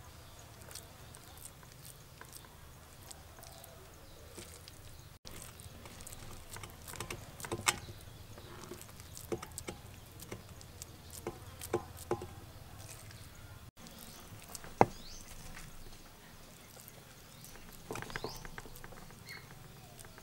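Hands pressing and patting minced pork filling into bell pepper rings on a stainless steel tray: soft squishes and scattered small clicks and taps, with one sharper tap about fifteen seconds in.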